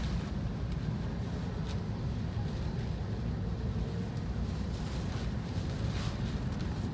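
Steady low rumble of a car on the move, heard from inside the cabin, with the wind and rain noise of a typhoon. There are brief swells of hiss about two seconds in and again near the end.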